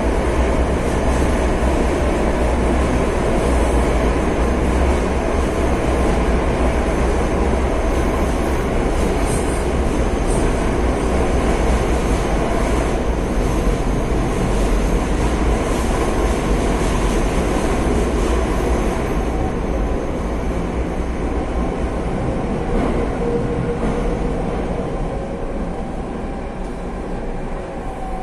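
Madrid Metro Serie 5500 train running, heard from on board: a steady, loud rumble of wheels and running gear, easing slightly in the last several seconds as a faint whine comes through.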